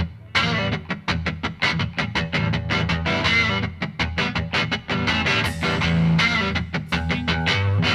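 Background rock music led by a distorted electric guitar with a quick, driving rhythm.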